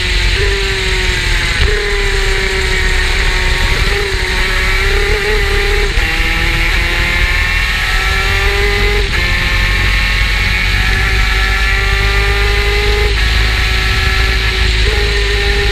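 Superkart's two-stroke racing engine running at speed. Its note rises and falls and jumps abruptly in pitch several times, under a heavy low rumble.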